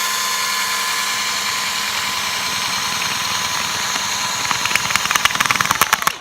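Electric drill boring a hole, running with a steady whine, then chattering rapidly over the last second and a half as the bit works through, and stopping just at the end.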